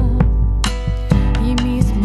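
Slow folk song played on acoustic guitar with percussion, with a sharp stroke about every half second over steady bass and held melody notes.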